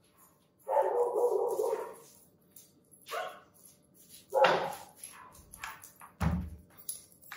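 Dog barking: a long, drawn-out bark about a second in, then two shorter barks. A dull thump near the end.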